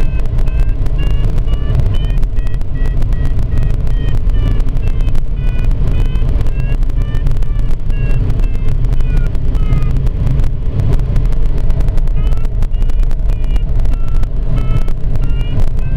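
Glider cockpit's audio variometer beeping a few times a second, its pitch stepping up and down as it signals lift, over a loud, steady rumble of airflow around the canopy.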